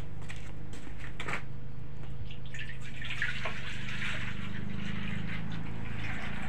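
Coconut milk being poured from a bowl into a pot, a steady hissing pour starting about two and a half seconds in and lasting a few seconds, over a steady low hum.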